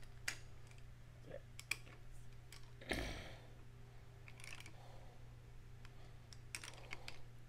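Scattered clicks of a socket ratchet working the milling head's adjuster, with one heavier metal clunk about three seconds in, over a steady low hum.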